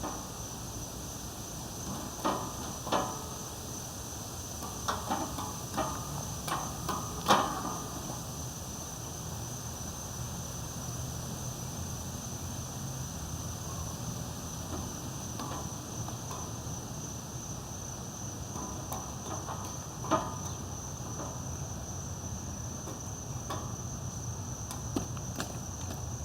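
Scattered knocks and clanks from a person's hands and body on metal playground monkey bars, a cluster in the first eight seconds, loudest about seven seconds in, and one more about twenty seconds in. A steady high-pitched tone runs underneath.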